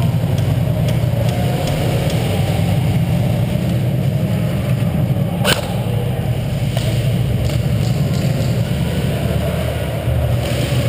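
Steady low rumble of background noise, with one sharp click about five and a half seconds in.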